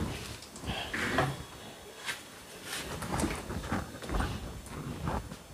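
Workbench handling noise: a series of irregular clicks, knocks and light scrapes as parts are moved around.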